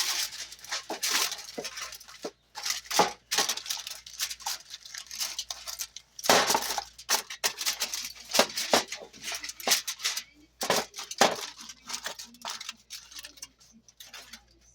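Aluminum foil rustling and crinkling in irregular bursts as it is pressed over a baking pan, with light clinks from the pan.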